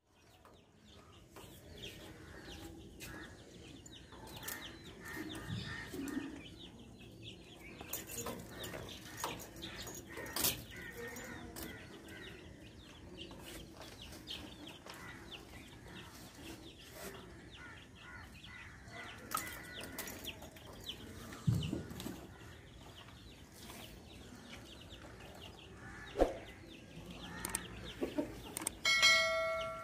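Chickens clucking, mixed with scattered sharp clicks and clinks from the dog's metal chain. A short pitched tone sounds near the end.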